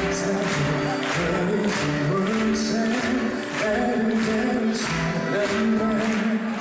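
Male vocalist singing live into a handheld microphone over a music backing with a steady beat, the sung notes held and gliding.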